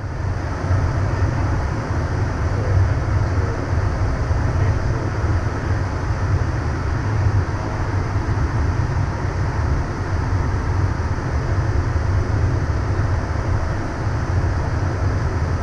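Steady in-flight cockpit noise of a Cessna Citation CJ3 business jet: a deep rumble of airflow and engines with an even hiss over it.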